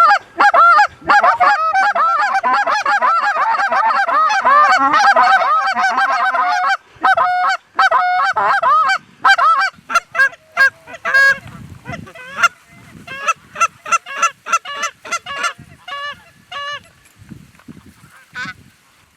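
Canada geese honking: a dense chorus of overlapping honks for about seven seconds, thinning to scattered single honks that die out near the end.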